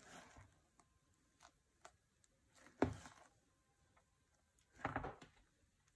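Spatula folding chocolate mousse in a glass bowl: faint soft scrapes and light ticks, with one sharp knock against the bowl about three seconds in and a short scrape near five seconds.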